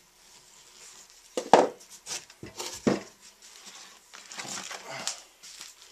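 Knife peeling and scraping bark off a log in several rough scraping and tearing strokes, the loudest about a second and a half in, with a longer rasping stretch near the end.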